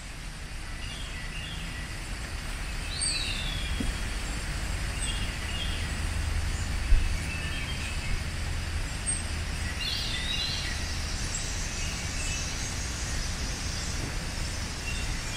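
Songbirds chirping and calling outdoors over a steady low rumble, with a slurred whistled call about three seconds in and another about ten seconds in. A single thump stands out about seven seconds in.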